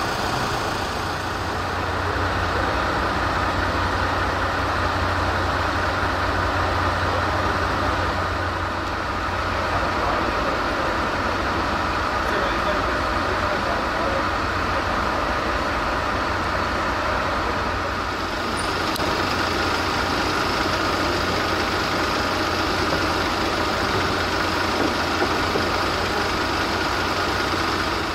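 Vehicle engines idling steadily.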